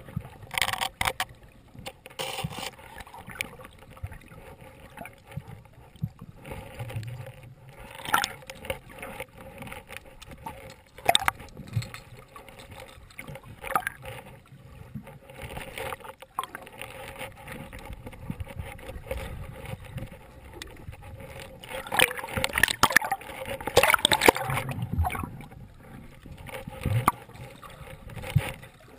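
Muffled underwater sound through an action camera's waterproof housing: water moving around the camera, with irregular clicks and crackles, busier and louder for a few seconds about three-quarters of the way through.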